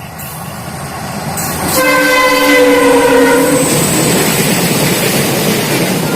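Train running with a steady rumble, its horn sounding one blast of about two seconds a couple of seconds in.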